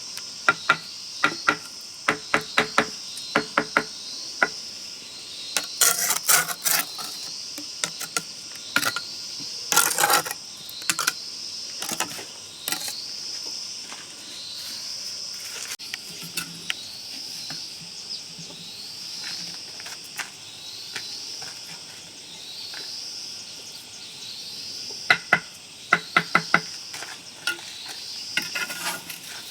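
Insects chirping steadily in a repeating high pattern. Over it come scattered clusters of sharp hard taps and knocks, several quick ones in a row at a time, in the first few seconds, twice more in the first half and again near the end.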